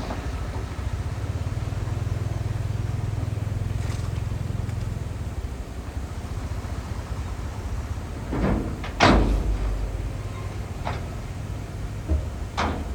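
Heavy diesel earthmoving machinery running with a steady low rumble, with a loud sudden noise about nine seconds in and a shorter one near the end.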